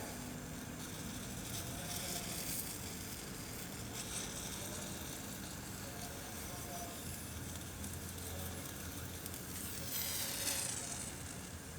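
Whole sweet orange roasting over a flame, its peel sizzling and hissing steadily, with a stronger burst of sizzling near the end.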